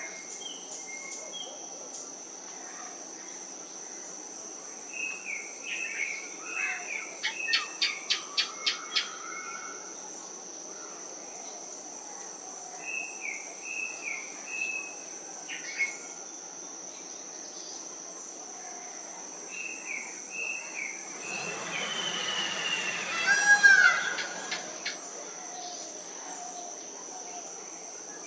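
Tropical wild soundscape: a steady, high insect drone of crickets, with short bird calls repeating every few seconds. A quick run of about eight sharp notes comes near the eight-second mark, and the loudest sound is a louder call about twenty-three seconds in.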